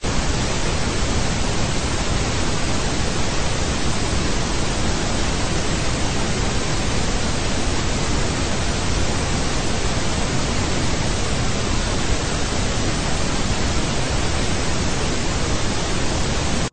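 Loud, steady hiss of television static (white noise) that cuts off abruptly at the end.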